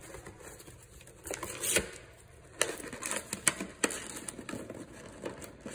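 Cardboard packaging of a Pokémon collection box being pried and pulled open by hand: irregular crackles and sharp snaps with rustling between them.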